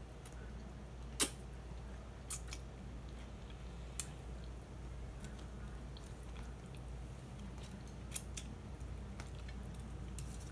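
Low steady hum with a few scattered sharp clicks and taps, the loudest about a second in and a pair around eight seconds in.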